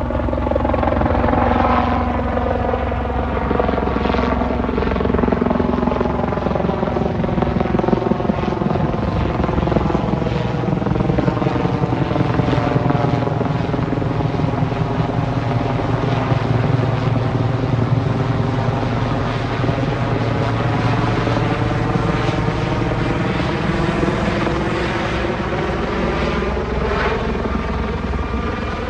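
Sikorsky S-76 helicopter flying overhead, its rotor and engines loud and steady throughout. The pitch sags slowly and rises again as it passes.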